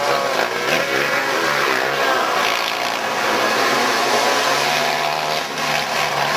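A pack of outlaw dirt kart engines running hard together, several pitches rising and falling as the karts race past.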